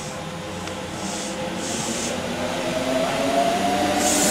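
Kintetsu electric commuter train running in along the platform, growing steadily louder as it nears, with a motor whine that climbs in pitch over the last second or so and a few short hisses.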